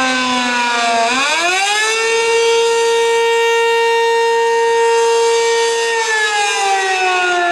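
ACA P15 fire siren sounding, one pitched tone with many overtones. Its pitch is falling, swings quickly back up about a second in, holds steady at full pitch for about four seconds, then starts falling again near the end.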